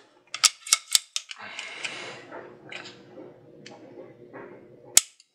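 A few light metallic clicks and rustling handling as a weight-type trigger pull gauge is hooked onto a CZ 457 rimfire rifle's trigger, then one sharp click about five seconds in as the trigger breaks under the gauge's weight.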